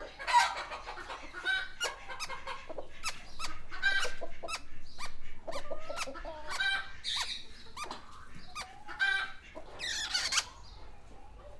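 Parakeets and turkeys calling together: a dense run of short, overlapping chirps and squawks.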